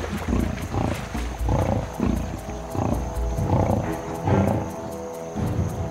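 Lionesses growling again and again as they pull down and kill a buffalo, with background music underneath.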